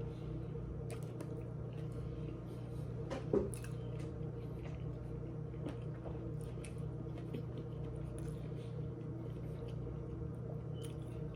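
Someone eating a tuna footlong sub sandwich: soft wet chewing and mouth clicks scattered throughout, over a steady low hum. There is a brief louder sound about three seconds in.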